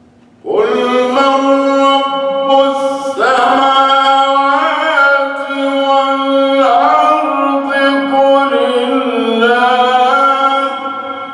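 Male voice reciting the Quran in a slow, melodic, drawn-out chant (tajweed recitation): one long phrase sung on sustained vowels with ornamented turns and glides in pitch, starting about half a second in and fading near the end.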